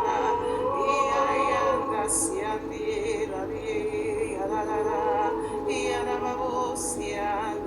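Sung praying in tongues: a voice chanting flowing syllables in an unknown tongue to a wavering, vibrato-laden melody, with sharp hissing 'sh'/'s' sounds about two seconds in and again near the end.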